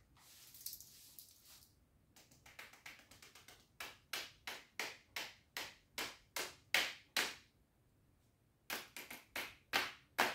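A deck of playing cards being handled: a short rustle of cards, then a run of about ten sharp card snaps, about three a second, as cards are dealt off the deck one by one, and after a pause another half-dozen snaps near the end.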